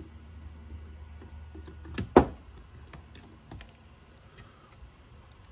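Small clicks and taps of hand work on an RC crawler's panhard bar and screw, with one sharp knock about two seconds in that is louder than the rest. A low steady hum stops at the knock.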